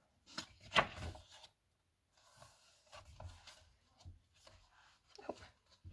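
Pages of a K-pop album photobook being turned and handled: paper rustling with light knocks, the loudest about a second in, then softer scattered rustles.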